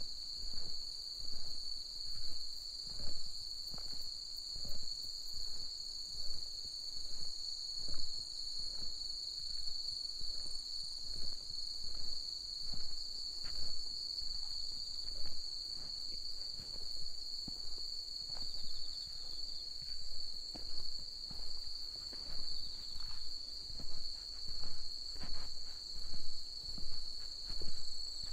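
A steady, high insect chorus with a walker's footsteps at about one step a second.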